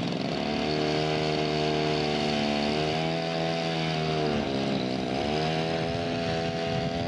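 Radio-controlled scale model airplane's engine running in flight, a steady drone whose pitch dips about three seconds in and again around five seconds in.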